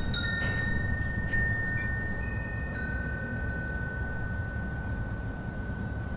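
Wind blowing with a steady low rumble while wind chimes ring in it. There are a couple of strikes in the first second and a half, then the chime tones ring on.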